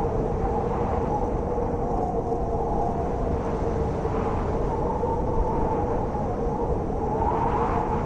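Blizzard wind howling, a steady low rumble with a wavering whistling tone that swells in gusts about four seconds in and again near the end.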